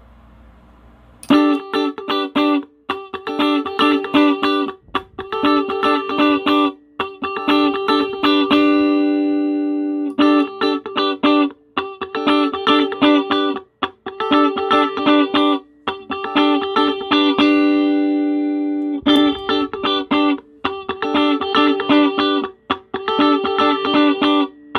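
Electric guitar, a Sterling JP60, played through a compressor pedal into a small Roland Cube amp. A picked figure over two sustained notes starts about a second in and repeats in phrases of roughly two seconds, with short breaks between them.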